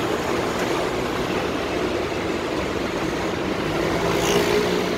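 Steady street traffic noise with the low hum of idling engines. It swells briefly about four seconds in.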